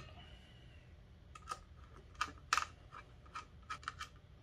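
Scattered light clicks and taps of small screws and a screwdriver as a Falcon pixel controller board is fitted onto its risers on a Lucite plate: about a dozen irregular clicks, the loudest a little past halfway.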